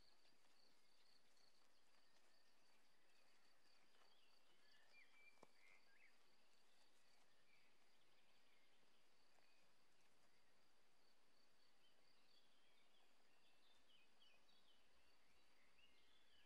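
Near silence: faint rural ambience, with birds chirping now and then over a steady high, pulsing trill.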